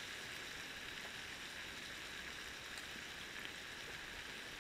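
Sausages sizzling steadily on a hot griddle plate over an alcohol burner: a fine, even crackling hiss.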